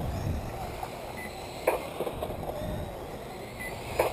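Radio-controlled dirt-oval modified cars running laps, over a steady low rumble, with two sharp clacks: one about a second and a half in and one at the end.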